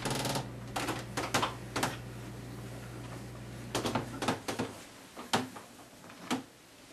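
Wooden cabinet of a 1971 Zenith console colour TV being tipped over onto its top: a scattered series of knocks and bumps of wood, with a short rattle at the start and a cluster of knocks a little after four seconds in.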